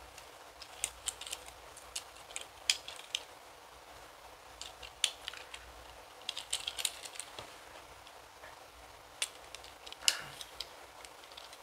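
Hard plastic parts and joints of a Transformers Nightbird action figure clicking and snapping as they are rotated and tabbed into place by hand. The clicks come irregularly and in small clusters, with the loudest snap about ten seconds in.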